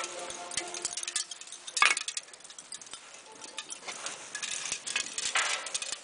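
Fine tinkling ticks and crackling from a red-hot raku-glazed pot sitting in burning sawdust, the glaze crazing as it cools, with one louder sharp crack about two seconds in.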